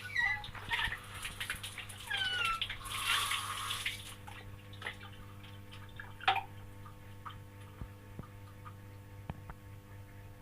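Bathroom PVC pipe giving short, high, falling squeaks, mistakable for a rat, with a brief rush like water about three seconds in and scattered faint clicks.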